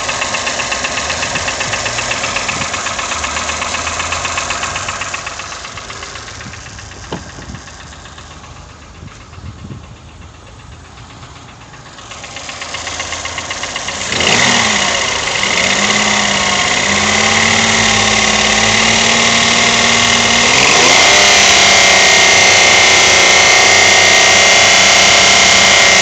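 Toyota 1KR-FE three-cylinder petrol engine running with a rhythmic knock whose cause is unknown, although its timing chain, tensioner and chain guide are new. The sound fades for several seconds and comes back. About halfway through it turns suddenly louder, with a high steady whine, and the engine speed rises and falls.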